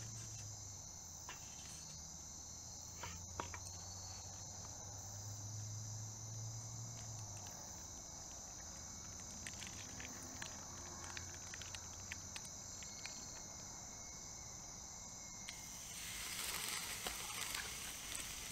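Steady night chorus of crickets, with a constant high trill and scattered faint clicks. From about 16 seconds in, a hissing sizzle joins it as a seasoned ribeye steak goes onto the hot grill of a small wood-burning firebox stove.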